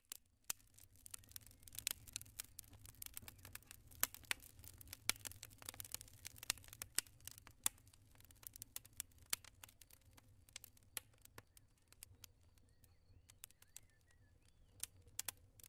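Quiet crackling fire: irregular pops and snaps over a soft low rumble, the pops thicker in the first half and sparser later.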